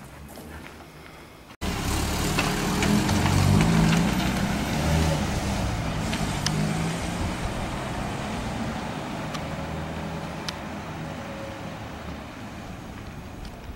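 Patrol pickup truck's engine running and revving as the truck moves off, coming in abruptly about a second and a half in and slowly fading.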